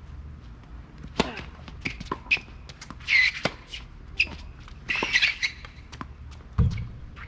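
Tennis balls struck by rackets in a rally on a hard court. A serve is hit about a second in, followed by a series of sharp pops of ball on strings and ball bounces, with a last dull thump near the end.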